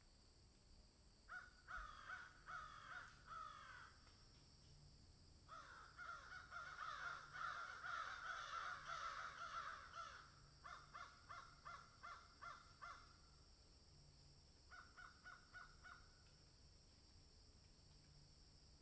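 Corvids, magpies and crows, calling harshly in runs of rapid short notes, in four bouts with pauses between; the longest and loudest bout is in the middle.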